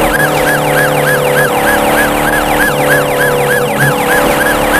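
Police car siren in fast yelp mode, rising and falling about three times a second, over a steady low car-engine drone.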